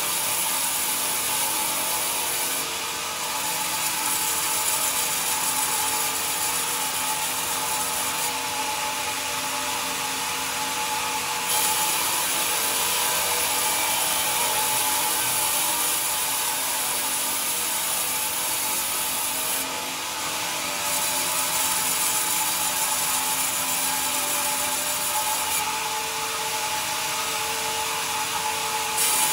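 Bandsaw mill blade cutting lengthwise through a pine beam: a steady, dense sawing hiss over a constant whine, dipping briefly twice.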